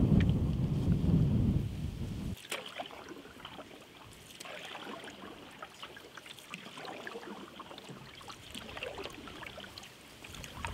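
A low rumble for the first two seconds cuts off suddenly. Then water lapping and trickling around a canoe, with small splashes and drips from paddling.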